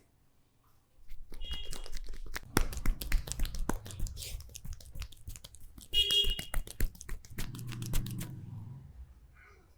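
Hands massaging head and hair: a dense run of rubbing and crackling strokes on hair and skin that starts about a second in and tails off near the end, with two brief high tones, one early and one midway.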